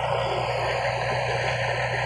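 Dump truck's diesel engine running steadily while the bed tips, under a loud, even rushing noise.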